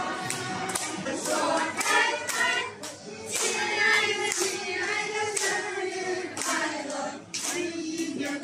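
A group of restaurant staff and diners singing a birthday song together in chorus, with hands clapping along.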